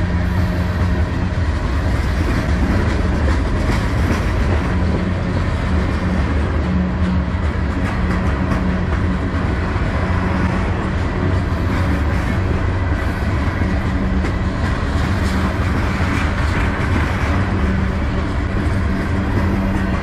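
Freight train tank cars rolling past, their steel wheels running on the rails in a steady, loud rumble.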